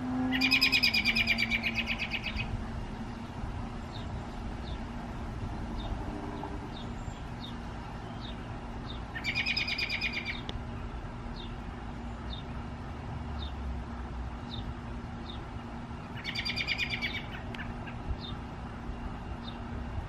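American robin giving three bouts of rapid chattering calls, each one to two seconds long and about seven seconds apart, with faint short high chips between them, over a steady low hum. The uploader takes this call for a warning to keep away from its nest or young.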